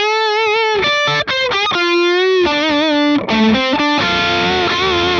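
Electric guitar played through the Line 6 HX Stomp's Compulsive Drive, a digital model of the Fulltone OCD overdrive: a single-note lead line of held, overdriven notes with vibrato and a few quick runs between them.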